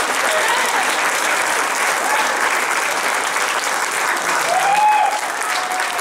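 Audience applauding steadily, with a few voices calling out over the clapping, one cheer standing out near the end.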